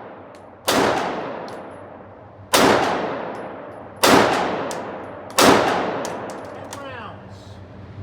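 Glock 19 9mm pistol fired four times, about one to one and a half seconds apart, each shot followed by a long decaying echo.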